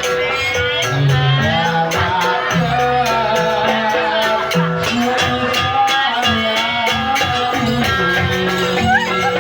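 Live jaranan music from a Javanese gamelan ensemble: drums beating a steady rhythm with gong tones and a wavering melody line over the top.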